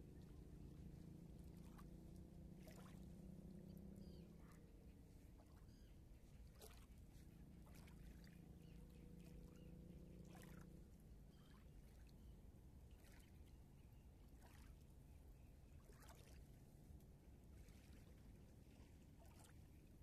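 Very faint distant engine drone, a low hum heard in the first four seconds and again from about eight to eleven seconds in. Soft, scattered ticks of small ripples lap at the shore.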